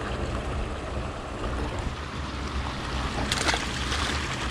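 Water rushing and splashing as it pours over a small concrete spillway into a shallow river, with wind rumbling on the microphone. A brief louder burst comes about three and a half seconds in.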